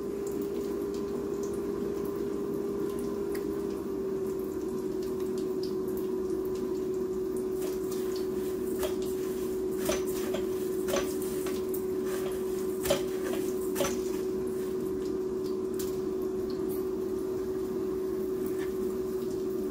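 Panko-breaded fish fillet frying in hot oil in a skillet: a steady sizzle with a few sharp pops around the middle, over a steady low hum.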